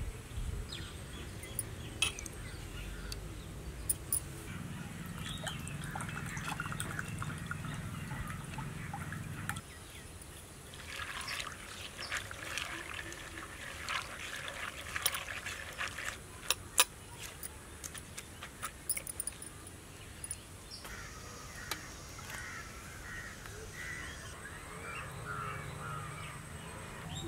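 A hand stirring and scooping through soaked chana dal in a clay pot: wet split lentils clicking and rattling against each other and the pot, densest around the middle. Birds call in the background later on.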